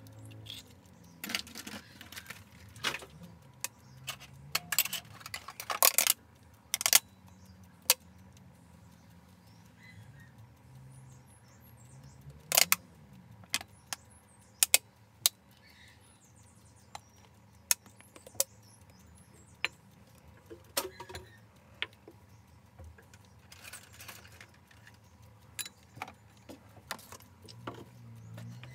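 Irregular sharp clicks and crackles from chicken eggs being cracked into a ceramic bowl and a plastic bottle being squeezed to suck up the yolks, loudest in a cluster about six seconds in.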